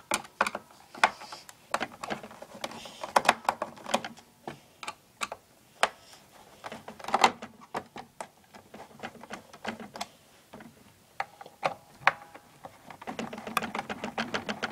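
Small Phillips screwdriver loosening screws in a Roomba 650 robot vacuum's plastic housing: irregular clicks and scrapes of the tip turning in the screw heads.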